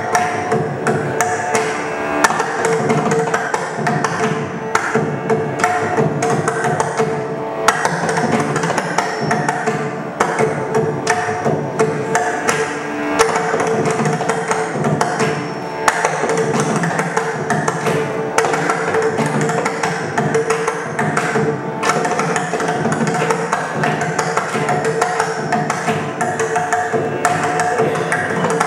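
Several mridangams (South Indian double-headed barrel drums) played together by hand in a fast, unbroken Carnatic rhythm, with a steady held tone underneath.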